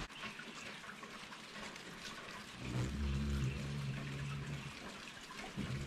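Steady rain hiss, with a low steady hum of a hummingbird's wings beating as it hovers at the feeder from about halfway through, and again near the end.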